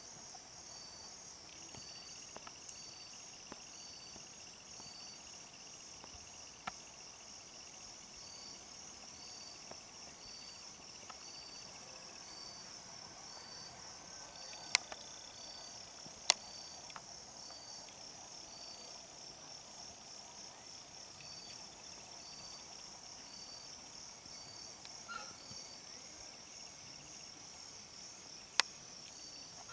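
Outdoor insect chorus: a steady high, pulsing chirring throughout, with a second insect calling in short, regularly spaced pulses. A few sharp clicks stand out, two about halfway through and one near the end.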